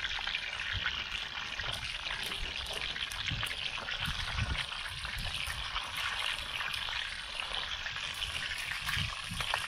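Fish frying in a pan over a camp stove, a steady crackling sizzle with a few low knocks.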